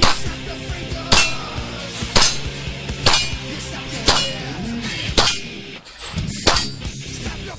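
Pistol shots at a steady pace of about one a second, seven in all, some followed by a short metallic ring from a struck steel target. Heavy metal music plays underneath.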